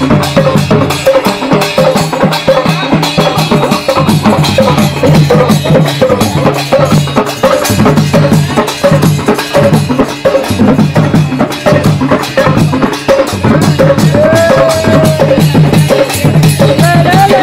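Loud Sambalpuri folk music with fast, dense drumming over a repeating deeper drum pattern. A pitched melody line rises and falls near the end.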